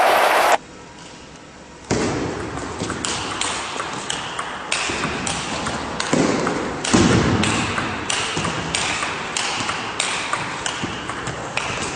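Table tennis rally: the ball clicking alternately off the bats and the table, about two to three hits a second, starting about two seconds in. Dull thumps of the players' feet on the floor come between some of the hits.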